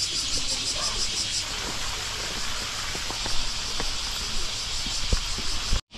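Outdoor ambience: a steady hiss with a fast, evenly pulsing high-pitched buzz for about the first second and a half, under faint voices and a few short clicks. The sound cuts off abruptly just before the end.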